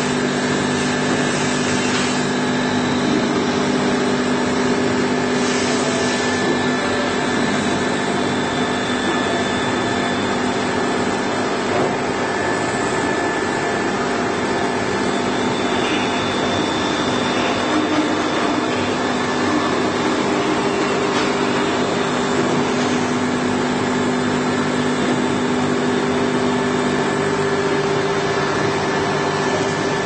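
A 1000 mm automatic knife grinding machine running steadily: an even motor hum with a few held tones over a continuous rushing noise.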